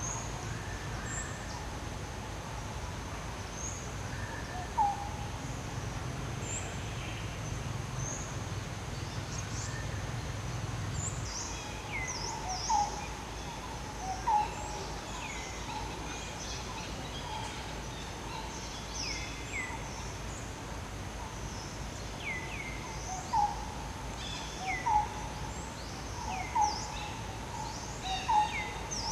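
Birds calling: repeated short, falling high chirps and brief lower notes over a steady outdoor background, growing more frequent after about ten seconds.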